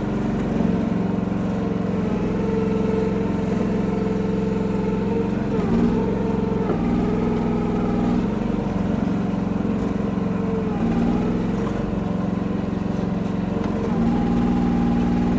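Kymron micro excavator's 14 hp Briggs & Stratton engine running steadily, its note shifting briefly every few seconds as the machine is worked.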